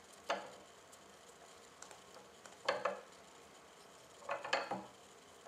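Metal parts of a custom PCP airgun's breech block and barrel clinking and clicking as they are handled and fitted together by hand: a sharp clink early, another about halfway, and a short cluster of clicks near the end.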